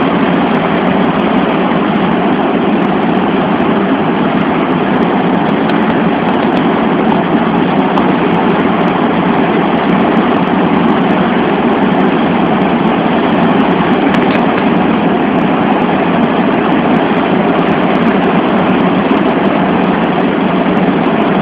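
Loud, steady noise of the four turbofan engines and rushing air inside the cargo hold of a Boeing C-17 Globemaster III in flight, unchanging throughout.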